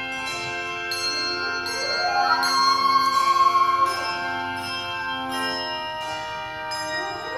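Handbell choir ringing sustained chords. Twice, a quick rising run of notes sweeps up the bells: about two seconds in and again near the end.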